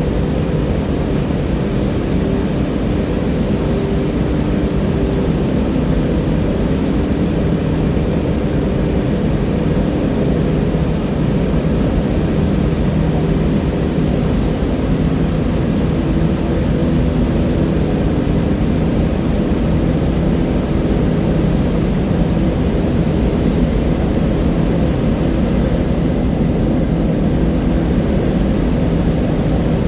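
River water rushing steadily, a loud, even, low rumble with no breaks.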